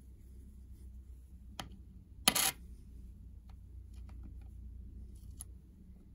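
Light handling noises: a small click, then one short, louder clack about two seconds in, followed by a few faint clicks.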